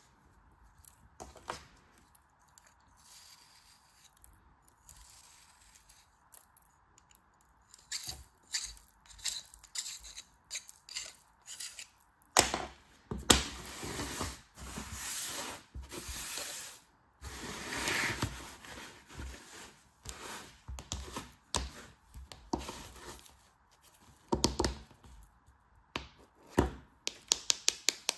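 Packaging being torn open and handled during unboxing: scattered clicks, then long rustling, tearing stretches about twelve seconds in, ending in a quick run of taps.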